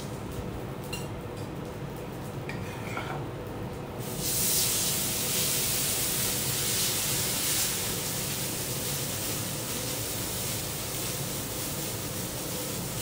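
Thick beef steak laid on a hot teppanyaki griddle about four seconds in, starting a loud sizzle that goes on and eases slightly toward the end. Before it, a few light clicks of a spatula and tongs on the steel plate.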